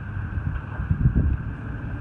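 Wind buffeting the microphone: a low rumble that surges in gusts about a second in.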